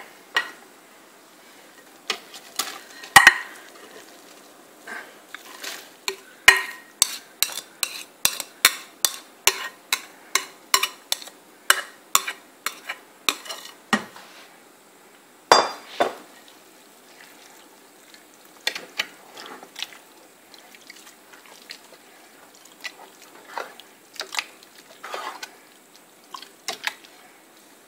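A white ladle stirring shredded bamboo shoots in a large metal stockpot of broth, clicking and knocking against the pot's side. The knocks come about two a second through the first half, with a few louder ones, then thin out.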